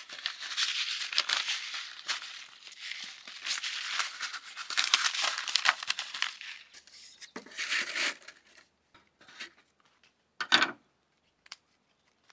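Paper seed packets rustling and crinkling as hands gather and shuffle them into a stack, steadily for about seven seconds. This is followed by a few short separate rustles and one sharper tap about ten seconds in.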